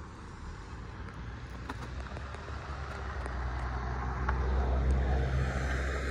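A car passing on a nearby road: a low engine and tyre rumble that swells to its loudest about four to five seconds in, then eases off.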